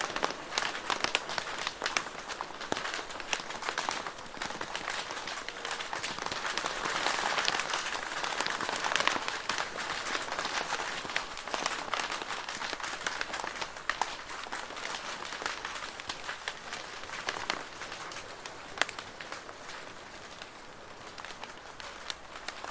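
Rain falling on a plastic roof: a dense, steady patter of drops with sharp individual ticks, easing a little near the end.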